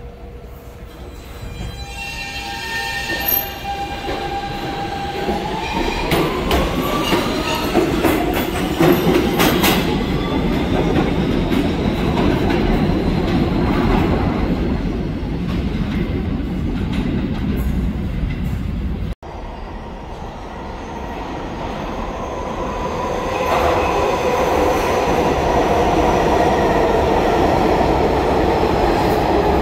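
New York City R160 subway train pulling out: its propulsion whine holds, then rises in pitch over the first several seconds, with wheels clicking over rail joints. After a sudden break, a second R160 train comes up and passes at speed, its rumble building with a steady whine and wheel squeal.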